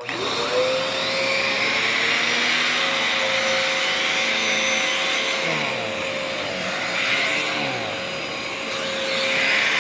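Dirt Devil Multi-Surface Rewind upright vacuum cleaner switched on with its turbo brush attached: the motor spins up to a steady whine within about half a second and runs on with a strong rush of suction. The pitch wavers for a few seconds in the middle.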